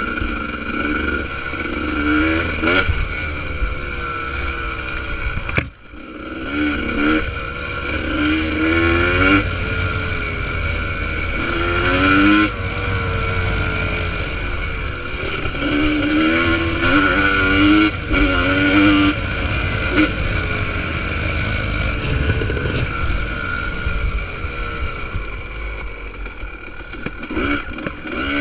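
2000 Honda CR250R single-cylinder two-stroke engine revving hard, its pitch climbing and dropping over and over as the rider accelerates and shifts along the trail. The throttle is briefly chopped about six seconds in.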